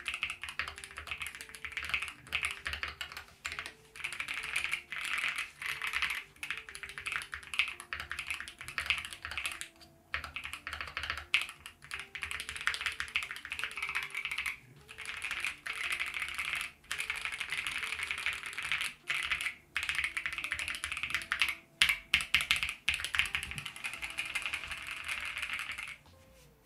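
Fast typing on the MonsGeek M1 HE-SP, an aluminium gasket-mounted keyboard with an aluminium plate and magnetic Hall-effect switches: a dense run of keystroke clacks with brief pauses every few seconds. Faint background music plays under it.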